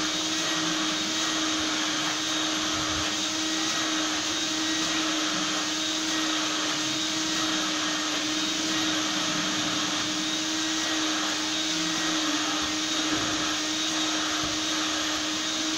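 Drum-type canister vacuum cleaner running steadily, its hose nozzle being worked over a padded upholstered pouffe; a constant hum under a rushing hiss.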